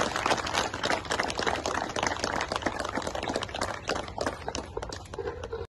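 Rustling and crackling of a clip-on lapel microphone being handled and fitted onto a shirt, the mic rubbing against cloth. A dense run of rapid crackles that cuts off suddenly at the end.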